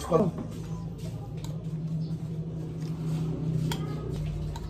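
A steady low electric hum holding one pitch, with a few faint clicks.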